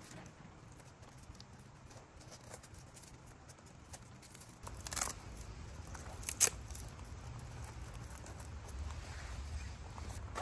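Handling sounds as a bike frame bag and its battery cabling are worked by hand: light rustling with two sharp clicks about five and six and a half seconds in, the second the louder. A low rumble sets in about halfway through.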